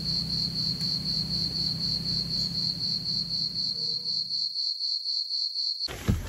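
Cricket trilling, a steady high-pitched trill pulsing several times a second, over a low hum that drops out about four and a half seconds in.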